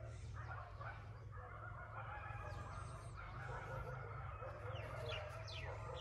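Faint, distant dogs barking and snarling in a fight, running on without a break, with small birds chirping over it from about the middle onward.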